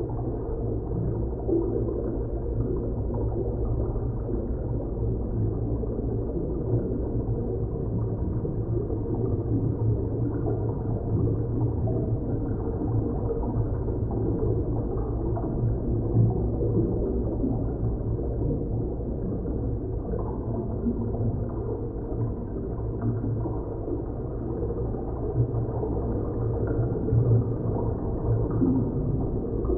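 Dark, deep sci-fi drone ambience of the kind made for underwater and space scenes: a steady low rumble with nothing high in it, rising in a few small swells.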